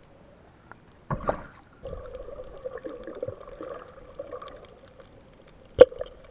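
Underwater recording: gurgling, bubbling water over a steady hum, with two sharp knocks, one about a second in and a louder one near the end.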